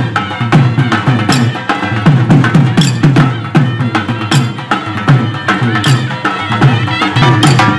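Dhol-shehnai band playing raas-garba folk music: fast dhol drumming with deep strokes that drop in pitch, sharp clacks, and a steady reed melody over them.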